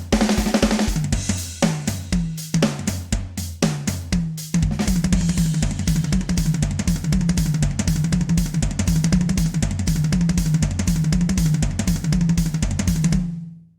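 Drum kit playing a beat of bass drum, snare and cymbals. About four and a half seconds in, it breaks into a fast, unbroken run of hits, which fades out near the end.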